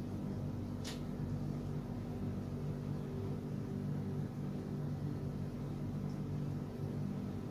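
Steady low machine hum with a constant pitch, and a short hiss about a second in.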